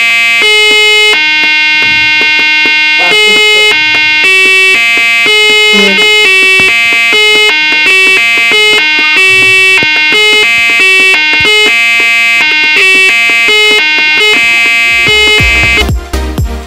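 Home-made Arduino harmonium: a small loudspeaker driven by a microcontroller plays a simple tune of single electronic notes, changing pitch about every half second as the push buttons are pressed. Near the end the notes break off and background music comes in.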